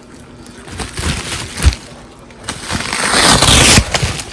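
Cardboard shipping box and its packaging being pulled open by hand: a dull knock, then a loud rush of rustling and tearing packaging lasting about a second near the end.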